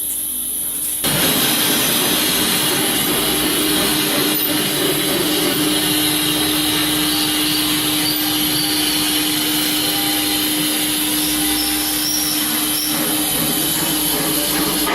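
Automatic-loading CNC woodworking router running: a loud, steady rushing machine noise with a steady hum switches on abruptly about a second in and holds.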